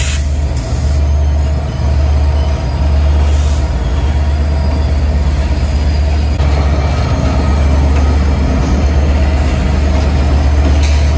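Train running: a steady, loud, deep rumble with noise spread above it.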